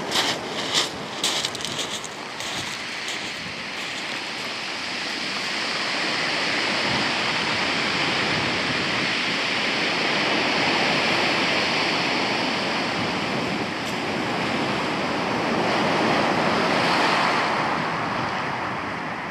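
Surf breaking on a shingle beach and washing up over the stones, swelling and easing wave by wave. There are a few sharp clicks in the first couple of seconds.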